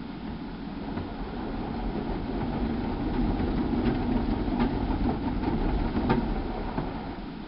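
Automatic gantry car wash machine running, heard from inside the car being washed: a steady mechanical rumble and hum, with a few faint ticks in the second half.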